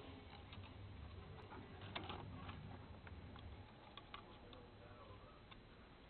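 Faint, scattered small clicks and taps as a key pad circuit board and its flat ribbon cable are handled and pressed into the plastic base of a Sony ICF-SW100 radio, the loudest cluster about two seconds in. A low hum underneath fades out about halfway through.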